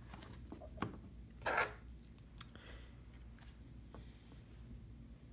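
Small metal shield plate and tools being handled while it is fitted over the connectors inside an iPhone 6: a few light clicks and one short scrape about a second and a half in.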